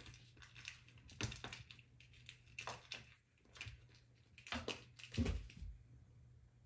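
A cat pawing and scratching at a mouse toy: a string of short, irregular scrapes and soft knocks, with a dull thump about five seconds in.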